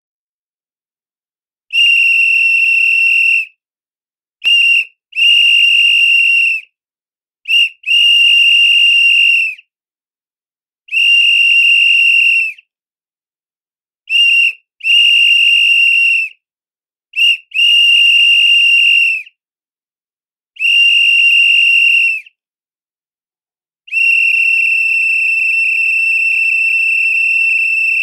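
A pea whistle (trill whistle) blown in about a dozen loud, steady blasts with gaps between them, some coming as a quick short toot followed by a longer blast of a second and a half. It ends with one long held blast of about four seconds.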